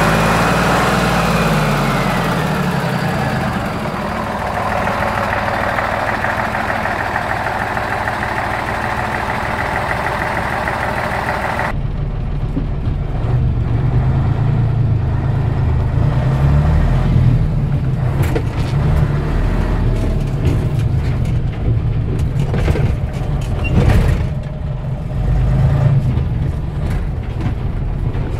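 Mercedes-Benz SK 1722 tipper's diesel engine idling. It is first heard by the radiator at the front, with a lot of hiss. After an abrupt change about twelve seconds in it is heard from inside the cab, deeper and more muffled, with a few light clicks.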